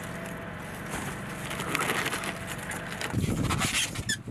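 Shrink-wrapped cases of plastic water bottles being handled and stacked, the plastic crinkling and crackling, over a steady low hum. The handling gets louder and rougher in the last second.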